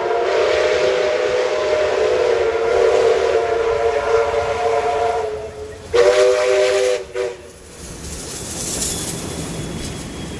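Steam locomotive whistles sounding: one long steady blast that stops about five seconds in, then a short second blast about a second later. After that the passing locomotives and carriages give a steady hiss of steam and a rumble.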